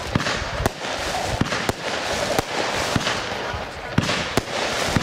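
Weco 'Insomnia' firework battery firing: sharp bangs of bursting shells come about twice a second at uneven intervals over a continuous crackle.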